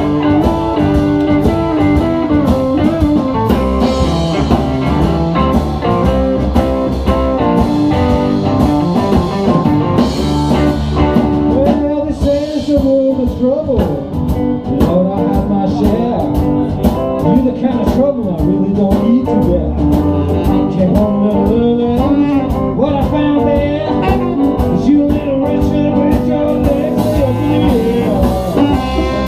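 Live blues band playing an instrumental passage of the song, guitar over drums, with a lead line of bent notes from about twelve seconds in.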